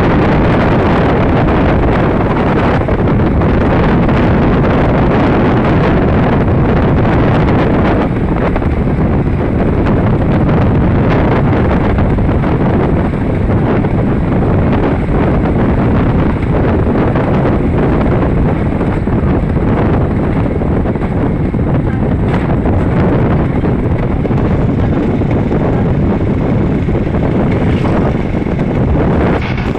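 Motorcycle tricycle running steadily at road speed, with heavy wind buffeting on the microphone.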